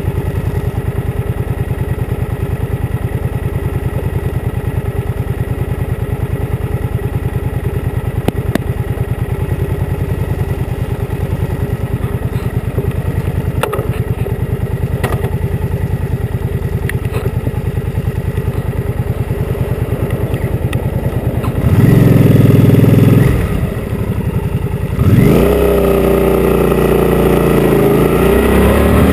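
Motorcycle engine idling with an even, steady beat and a few light clicks. About twenty-two seconds in it is suddenly revved loud, drops back, then pulls away with its pitch rising as it accelerates.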